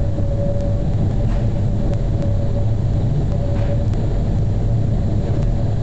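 Zurich VBZ tram running along street track, heard from inside the car: a steady low rumble from the running gear with a faint steady tone above it and a few light ticks.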